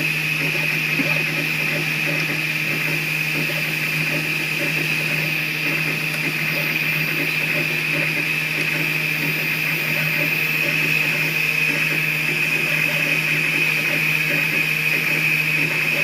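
A 3D printer running mid-print: a steady whirring hum with faint shifting motor sounds underneath.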